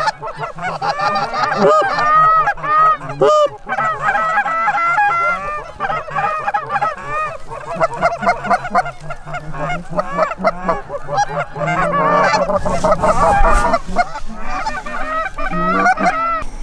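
A large flock of Canada geese honking overhead, with many calls overlapping continuously. A short rush of noise comes about twelve seconds in.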